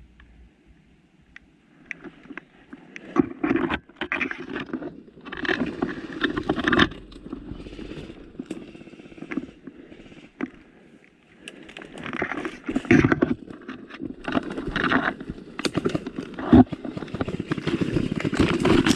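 Leaves and branches scraping and rustling close against a helmet-mounted camera as someone pushes through undergrowth, in irregular bursts with sharp twig cracks. It starts after a quiet first couple of seconds.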